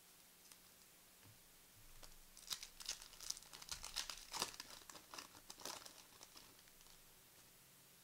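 A 2020-21 NBA Mixer trading-card pack being torn open, its wrapper crinkling in a quick run of sharp crackles. The crackles start about two seconds in and die away after about four seconds.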